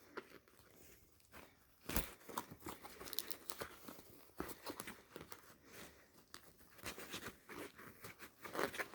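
Faint, irregular rustling, scraping and small clicks of a folded fabric bow with velcro straps and a kilt pin being pushed and worked through tight seatbelt-webbing straps of a bag.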